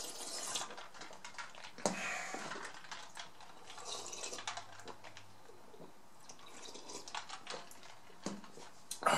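A person drinking from a tumbler, with quiet swallows and small wet mouth clicks scattered through, one a little louder about two seconds in.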